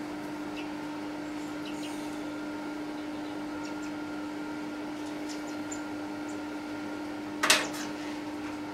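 Metal lathe running steadily with a steady hum, a workpiece turning between centres. One sharp metallic clack comes near the end.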